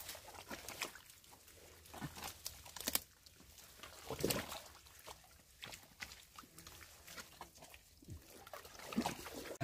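Hands digging in soft, wet mud, with scattered quiet squelches and sloshes as the mud is worked out of a crab burrow.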